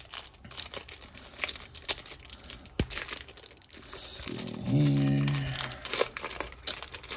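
Foil trading-card pack wrapper being torn open and crinkled by hand, with irregular crackles and small snaps. About five seconds in, a man gives a short low hum that lasts about a second.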